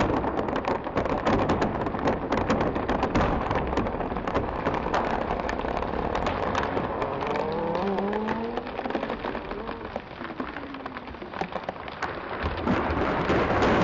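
A tree giving way: dense, sharp crackling and splintering of wood. A creaking groan slides up and down in pitch from about seven to ten seconds in, and a louder steady rush of crashing follows near the end.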